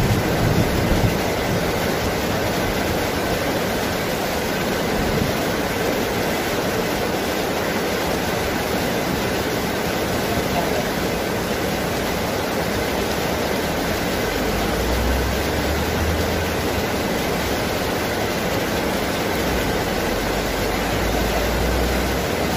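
Heavy rain falling steadily on rainforest foliage, a dense even hiss. Low rumbles of distant thunder come in about two-thirds of the way through and again near the end.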